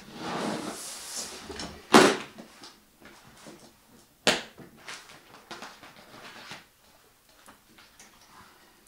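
A hard-shell briefcase handled on a desk: a rushing scrape as it is moved, then two sharp clicks about two seconds apart as its catches and lid are worked open, followed by lighter clicks and paper rustling.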